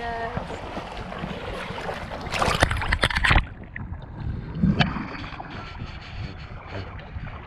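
Wind buffeting a handheld action camera's microphone over shallow seawater sloshing around wading legs. About two and a half seconds in comes a loud rough burst of noise lasting about a second, after which the sound turns duller.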